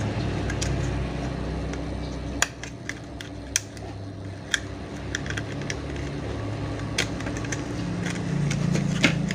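Small sharp clicks and taps of hands handling a laptop RAM module and its parts, about half a dozen spread through, over a steady low rumble.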